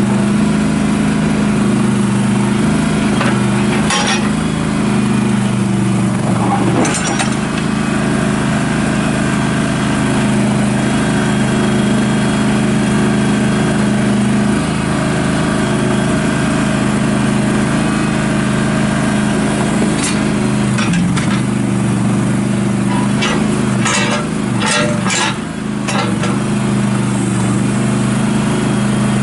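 Kohler 20 hp V-twin gas engine of a Terramite T5C compact backhoe loader running steadily, with scattered metallic clinks and knocks, a cluster of them near the end.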